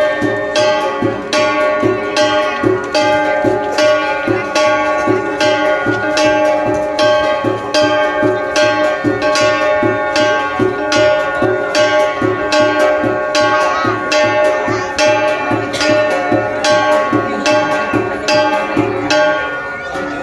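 Traditional gong music for the native dance: struck gongs beat a steady rhythm of about two strikes a second over ringing, sustained tones.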